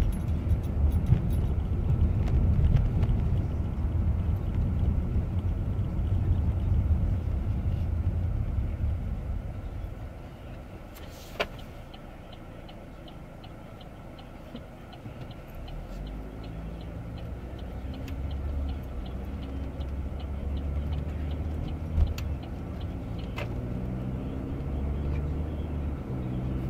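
Car cabin noise from inside a moving car, with a steady low road and engine rumble. It dies down about ten seconds in, then a lower engine drone comes back and builds. There is a sharp click a little after it quiets, followed by faint, evenly spaced ticking for several seconds.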